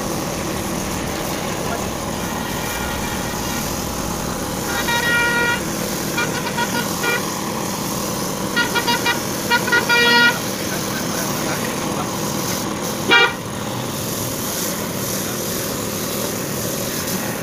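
Steady hiss of an air spray gun spraying paint, with vehicle horns tooting over it. Several short toots come in the middle, a quick run of beeps among them, and one last short toot follows a few seconds later.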